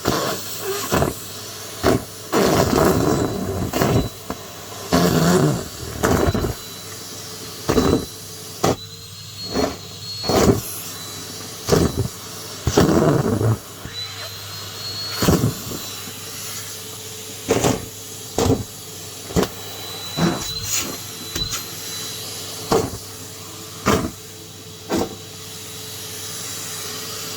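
Numatic James cylinder vacuum cleaner running with a steady motor hum, broken by frequent short, loud rushes of noise, around twenty of them, as it sucks things up.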